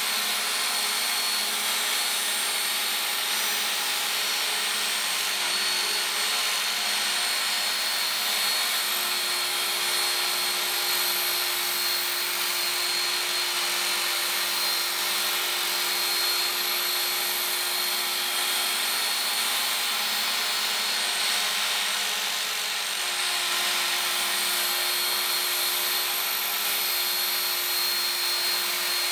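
Work Sharp Ken Onion Edition electric belt sharpener running steadily while a machete's steel blade is drawn across its moving abrasive belt: a continuous grinding hiss over the motor's whine, with a low hum that drops in and out.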